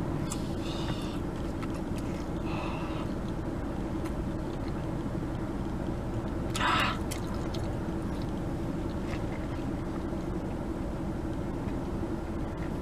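Steady low hum, with a few short noisy sounds; the loudest comes about six and a half seconds in.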